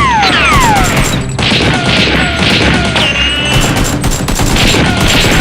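Rapid bursts of dubbed gunfire sound effects over background music, with two falling, whistling sweeps right at the start.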